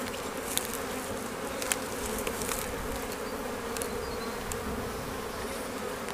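Honeybees buzzing around an opened hive: a steady, continuous hum, with a few faint clicks over it.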